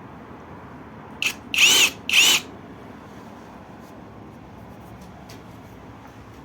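Electric drill run in three short bursts about a second in, its motor whine rising and falling in pitch with each brief trigger pull.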